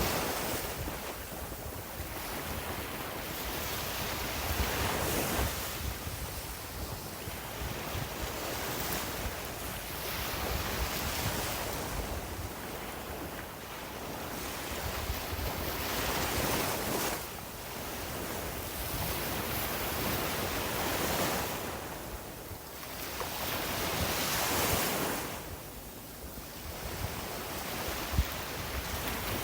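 Sea waves breaking and washing up a beach, the surf rising and falling every few seconds, with wind buffeting the microphone.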